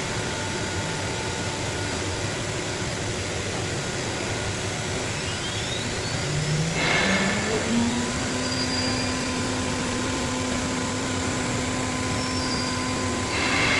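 5-axis CNC machine running, with steady machine noise throughout. About halfway through, a motor whine rises in pitch and then holds steady. Short noisy bursts come about halfway through and again at the end.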